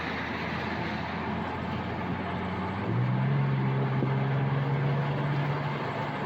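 Car driving, with steady road noise; about three seconds in, a steady low drone comes in louder for a few seconds before fading.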